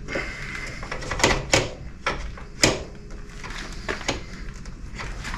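Short sharp clicks and knocks, about half a dozen scattered through, as the old rear shock absorber of a Royal Enfield Interceptor 650 is worked by hand off its mounting studs.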